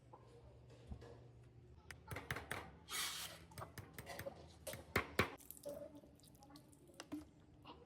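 Scattered light clicks and knocks, with a short scraping rustle about three seconds in and two sharper clicks around five seconds.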